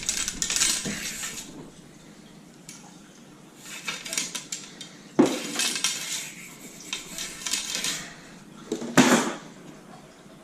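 Metal-on-metal clinking and scraping while a 12-gauge shotgun barrel is cleaned, with stretches of hissing noise and sharp knocks about five seconds in and again about nine seconds in.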